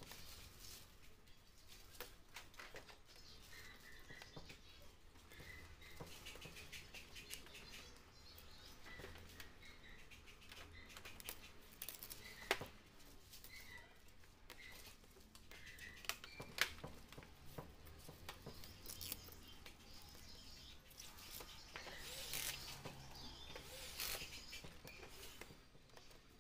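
Faint scraping and rubbing of old polarizer film and glue residue on the glass of an LCD panel, with scattered small scratches and clicks and two sharper clicks about halfway through.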